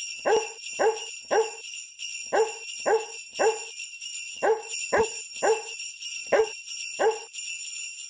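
Sleigh bells jingling steadily under eleven evenly timed dog barks in groups of three, three, three and two, starting and stopping together as a set sound clip rather than live barking.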